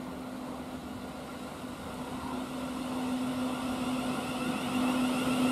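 A Thameslink Class 700 Desiro City electric multiple unit approaching, growing steadily louder, with a steady one-note electric hum over the running noise.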